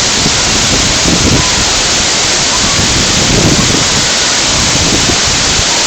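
Loud, steady rushing of a big waterfall crashing into its pool.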